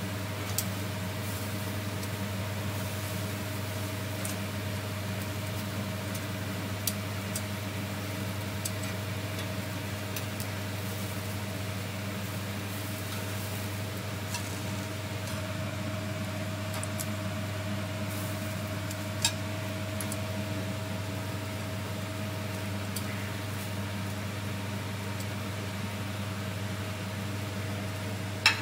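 A steady low mechanical hum, level and unchanging, with a few short sharp clicks scattered through it; the loudest click comes near the end.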